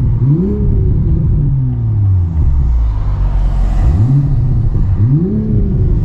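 Toyota GR Supra's B58 turbocharged inline-six running through a MADE Motorsports single-exit titanium cat-back exhaust, with the stock catted downpipe still fitted. The engine pitch climbs and then eases back twice, with a deep, loud exhaust note.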